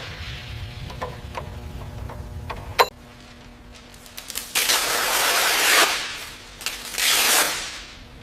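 A few light metallic clinks over a low rumble, then two loud hissing bursts of about a second each, about four and a half and seven seconds in.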